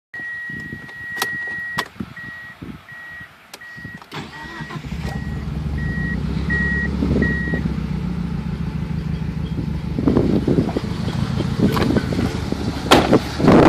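The car's warning chime sounds steadily, then beeps about twice a second, with a few sharp clicks, while a 1990 Talon's four-cylinder engine is started about four seconds in and settles into a steady idle. There are a couple of louder noisy bursts near the end.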